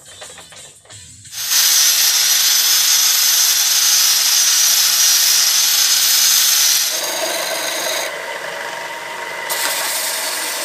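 Angle grinder with a sanding disc running against a block of pallet wood: a loud, steady high whine with the rasp of the abrasive on wood. About seven seconds in, the sound turns lower and rougher as a bench belt-and-disc sander sands the block.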